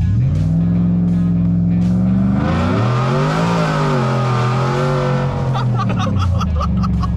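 Ford F150's 5.0 L Coyote V8 under hard acceleration, heard from inside the cab. Its pitch climbs at the start, climbs again about three seconds in, then falls back.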